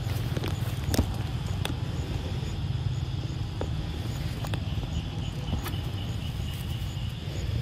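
Outdoor background with a steady low rumble, a faint steady high-pitched hum, and about seven sharp, irregular clicks.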